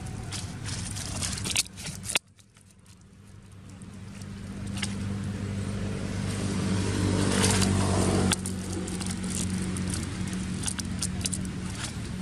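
A motor vehicle's engine hum that grows louder over several seconds and then drops off abruptly, with scattered crackles and clicks over it.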